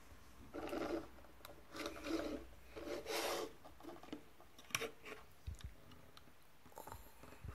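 Soft rubbing and scraping handling noise in short bouts, with a few small clicks, as a vinyl figure is picked up and moved about close to a hand-held phone's microphone.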